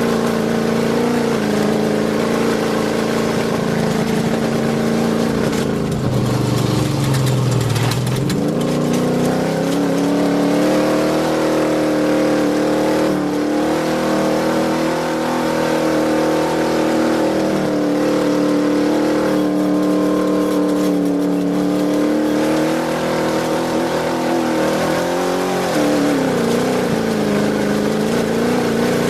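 Off-road race truck's engine running hard at speed, its pitch falling sharply about six seconds in and climbing back up, then dipping briefly again near the end as the throttle comes off and goes back on.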